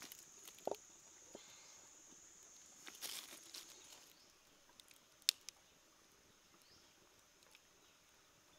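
Wood fire crackling faintly, with a few sharp pops, the loudest a little past halfway. A thin high steady tone sounds over the first half, then stops.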